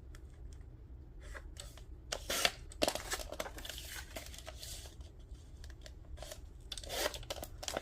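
A sheet of scrap paper being handled and shifted, with scattered light clicks and rustles; louder paper rustles come about two and a half seconds in and again near the end.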